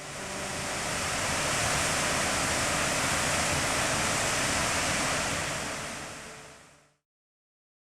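Rushing water of a waterfall: a steady, even rush that fades in over the first second or two and fades out to silence about seven seconds in.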